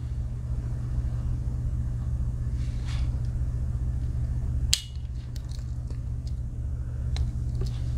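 Steady low hum, with one sharp metallic click about halfway through, briefly ringing, as a tool of a Victorinox Huntsman Swiss Army knife snaps against its backspring. A few faint ticks follow as the knife is handled.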